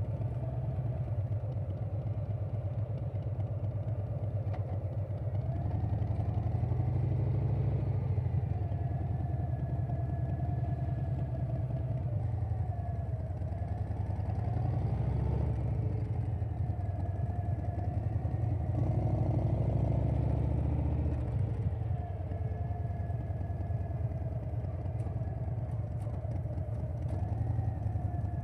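2020 Harley-Davidson Softail Standard's Milwaukee-Eight V-twin running at road speed through a Vance & Hines Big Radius 2-2 exhaust. The engine note swells and eases off a few times as the throttle changes.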